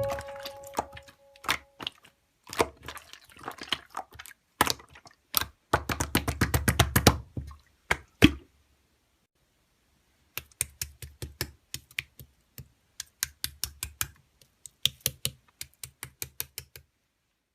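Rapid clicking like typing on a keyboard, in two runs with a pause of about two seconds in the middle. The second run is quicker and more even, several clicks a second.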